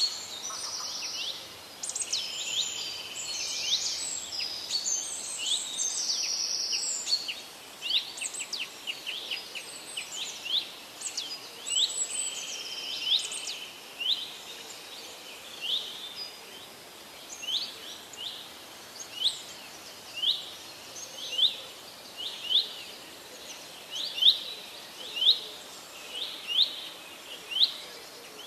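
Birds chirping: a dense, overlapping run of calls and held whistled notes for the first several seconds, then one bird repeating a short, sharp chirp about once a second.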